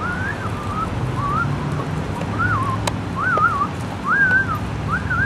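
A puppy whining: a run of short, high, wavering whimpers, each rising and falling in pitch, one after another.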